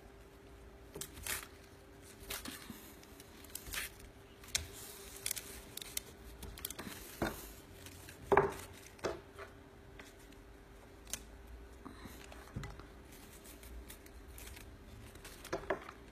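Cardstock being folded and handled: irregular crisp rustles, snaps and clicks, the loudest a little past halfway, over a faint steady hum.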